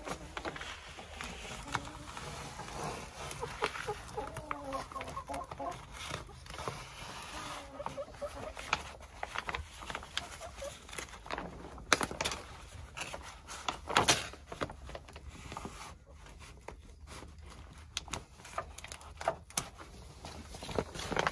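Hens clucking, with scattered clicks and knocks from hand work; the sharpest knocks come a little past the middle.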